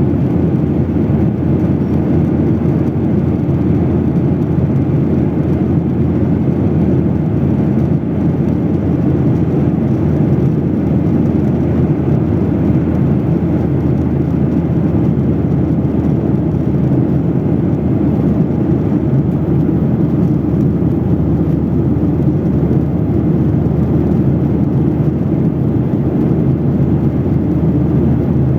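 Boeing 737-800's CFM56-7B jet engines giving a steady low rumble that neither rises nor falls.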